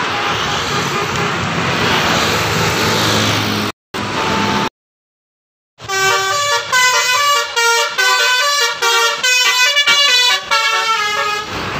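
Road traffic passing, then after a brief gap a bus's multi-tone 'telolet' horn plays a quick tune of rapidly changing notes for about five seconds.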